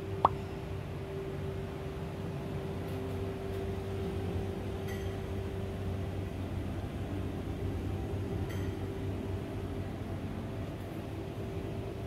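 Indoor room tone: a steady low hum with a faint steady tone, typical of ventilation and chiller machinery. One sharp, short click comes about a quarter second in, and a few faint ticks follow later.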